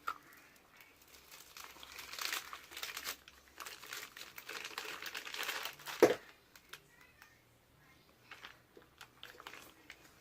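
Plastic piping bag crinkling as it is squeezed to pipe soap frosting, with one sharp, louder noise about six seconds in, then only scattered faint ticks.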